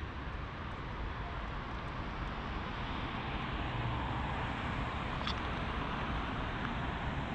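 City street ambience: a steady rush of road traffic, growing a little louder about two seconds in, with a faint short click about five seconds in.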